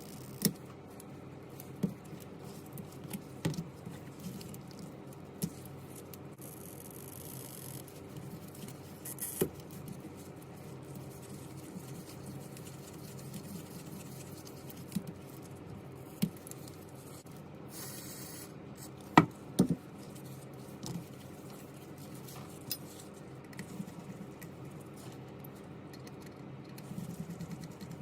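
Scattered small sharp clicks and taps of tools and phone parts being handled during a repair, over a steady low hum. The loudest is a pair of clicks about two-thirds of the way in.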